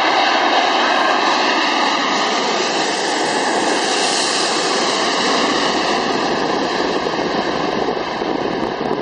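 Airbus A380 jet airliner passing low overhead on landing approach, a loud, steady engine roar. It grows brighter towards the middle as the plane passes over, then slowly eases.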